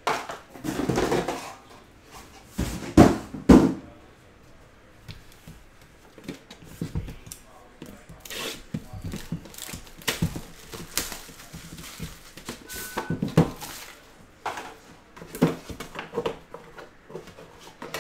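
Trading-card hobby box being handled and unpacked on a table: cardboard box and metal tin knocked, slid and set down, a string of taps, rustles and scrapes, with two loud thunks about three seconds in.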